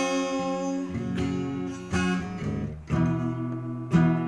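Acoustic guitar strummed, a new chord struck about once a second and left ringing between strokes.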